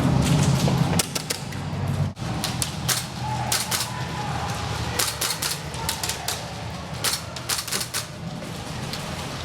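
Airsoft gunfire: scattered sharp clacks, some coming in quick bursts of several shots, from guns firing plastic BBs.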